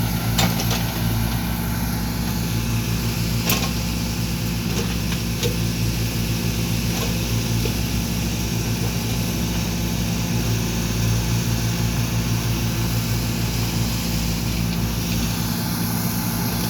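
Track hoe (excavator) engine running steadily under work, with a couple of sharp knocks about half a second and three and a half seconds in.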